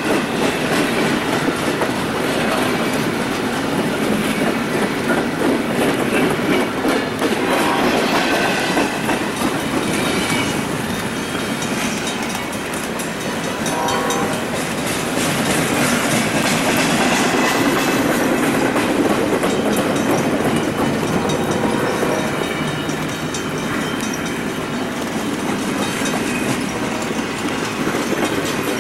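Long freight train of empty intermodal well cars rolling steadily past, its wheels running over the rails.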